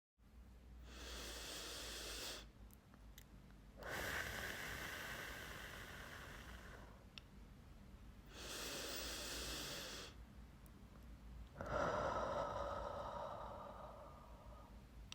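A person breathing deeply in and out, four slow breaths in all with short pauses between them. The second and fourth breaths are longer and fade away.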